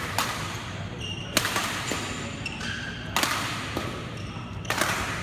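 Badminton rackets striking a shuttlecock in a rally, a sharp hit every second or so. Short squeaks come from court shoes on the floor.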